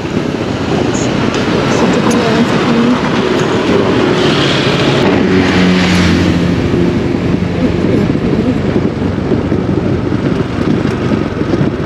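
A vehicle running: steady engine and road noise, with a low engine tone standing out in the middle.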